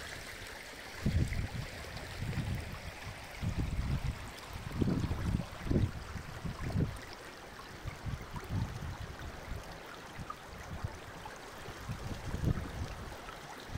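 Shallow rocky stream running and babbling steadily, with irregular gusts of wind rumbling on the microphone.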